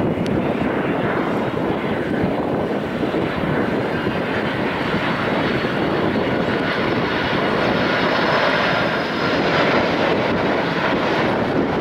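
Jet noise of a Boeing 767-300F freighter on approach with its landing gear down: its twin turbofans make a steady, loud noise with a faint high whine.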